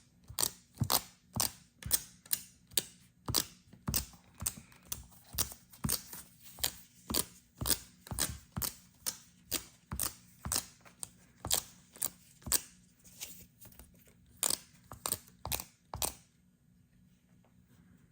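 A dust-removal sticker dabbed again and again on an iPhone's glass screen to lift specks before the protector goes on. It makes sharp ticks about two a second, which stop near the end.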